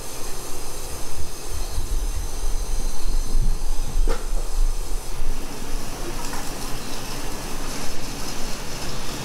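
Water rushing into a new electric water heater tank as it fills from the cold supply, a steady hissing rush, with the tank's pressure relief valve open to let air and pressure out. A single sharp click about four seconds in.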